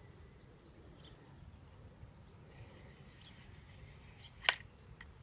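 Thin cleaning rod working inside the barrel of a Webley Hawk break-barrel air rifle, with faint rubbing and scraping. It ends in one sharp click about four and a half seconds in, then a lighter click.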